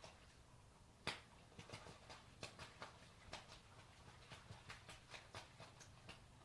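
Faint, irregular splashes and slaps of water as two drake mallards fight, beating their wings and thrashing in the water. The splashes come in a quick, uneven run, the loudest about a second in.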